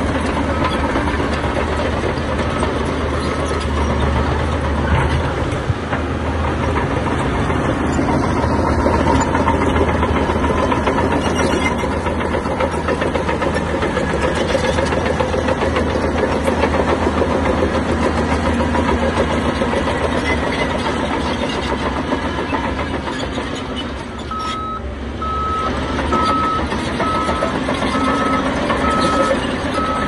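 Heavy diesel earthmoving machinery running steadily under load, with a reversing alarm beeping at an even pace for the first few seconds and again over the last five seconds.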